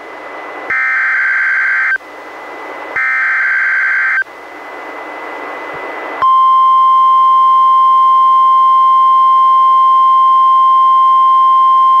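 NOAA Weather Radio SAME header: two bursts of digital data, each a little over a second long, with receiver hiss between them. About six seconds in, the steady 1050 Hz weather radio warning alert tone starts and holds. Together they encode and announce a new warning broadcast.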